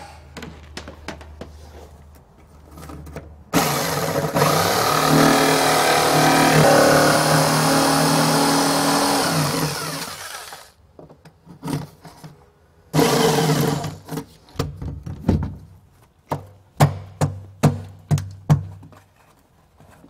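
Corded jigsaw cutting a rectangular opening in a fiberglass boat console, running steadily for about seven seconds and winding down, then a second short cutting burst. Near the end comes a quick run of sharp knocks.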